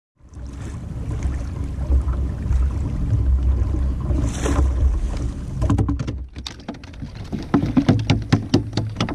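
Wind buffeting the microphone over water lapping at a kayak, a steady low rumble; in the second half a quick series of sharp clicks and knocks sets in.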